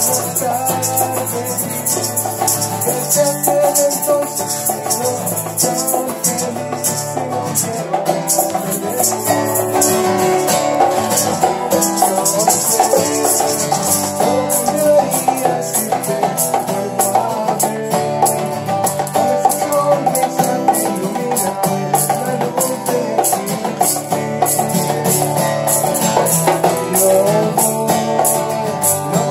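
Acoustic guitar strummed in a live home performance, with maracas and egg shakers shaking steadily in time and a man singing along.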